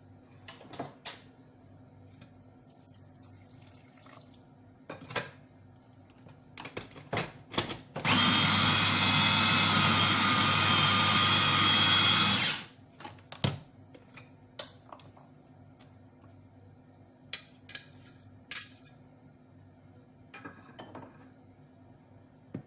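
Electric blender grinding leafy greens, herbs and fava beans. It runs steadily with a high whine for about four and a half seconds in the middle, then cuts off. Light clicks and knocks of handling come before and after.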